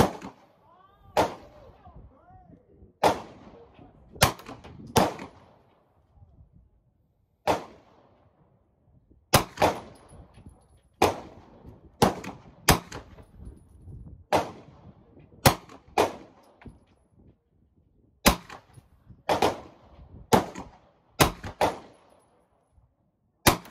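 Hi Point 995 9mm semi-automatic carbine fired as single shots at an uneven pace, about twenty in the span, each a sharp crack with a short echo after it.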